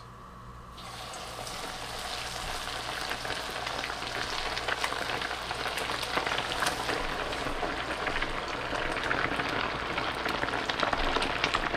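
Battered walleye fillets frying in a pot of very hot oil: a dense sizzling crackle that starts about a second in and grows louder as more fillets go in.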